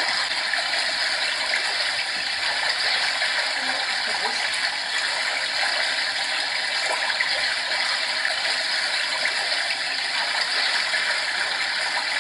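HoMedics SoundSpa SS-2000 sound machine playing its recorded brook sound: a steady, even rush of running stream water.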